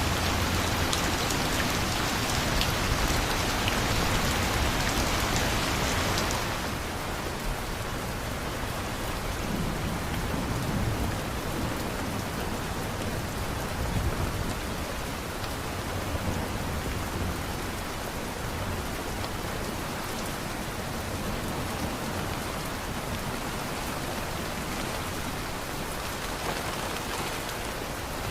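Steady heavy rain. About six seconds in it turns abruptly softer and duller, and stays that way.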